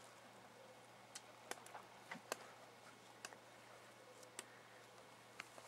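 Near silence broken by about ten faint, sharp ticks at irregular intervals.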